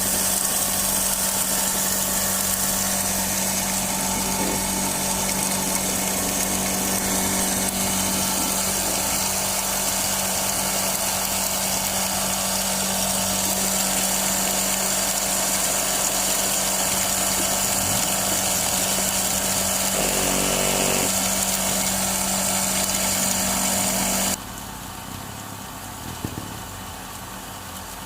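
Motor-driven pepper grinding mill running steadily while milling peppercorns into powder, with a steady hum and a high hiss. About 24 seconds in the sound drops suddenly to a quieter, steady run.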